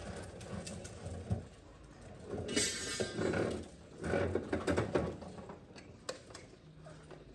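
Metal rattling and scraping in irregular bursts with sharp clicks, busiest in the middle: an electric cable being worked loose from the razor wire it had snagged on.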